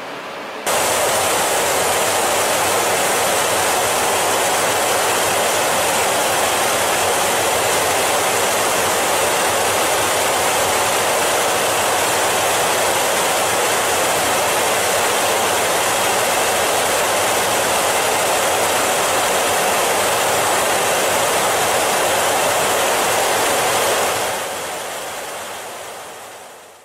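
Steady, even rushing roar of jet aircraft in flight, starting abruptly about a second in and fading out over the last few seconds.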